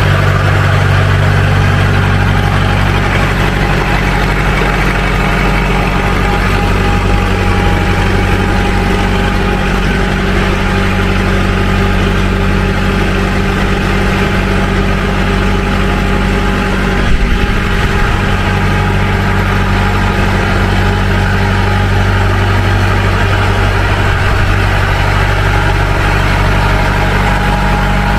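Tractor engine running steadily at idle, with one brief knock about two-thirds of the way through.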